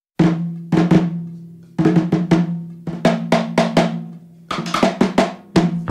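Background music intro played on drums: separate hits in an uneven, syncopated pattern, each with a short low ringing tone.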